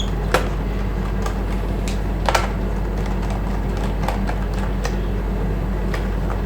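A few small, scattered clicks and taps of a metal multipurpose tool or screwdriver working at the screws of a laptop's plastic drive-bay panel, with a steady low hum underneath.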